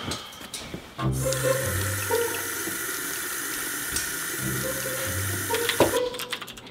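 Bathroom tap running into a sink as a steady hiss, starting about a second in and stopping about six seconds in. Keyboard keys clicking near the end.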